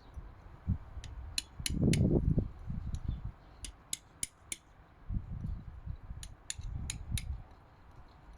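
Light metallic taps on a new ABS reluctor ring being seated onto a BMW drive shaft, tapped gently around its edge. There are about a dozen sharp, ringing taps in little groups of three or four, with duller knocks and handling noise between them.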